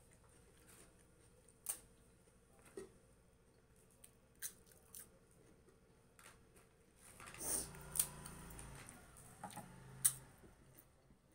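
Faint hand-eating sounds: a few scattered small clicks of fingers on the plate and food, then a louder stretch of crisp crackling and crunching about seven seconds in, with sharp snaps near eight and ten seconds, as pappad is broken and bitten.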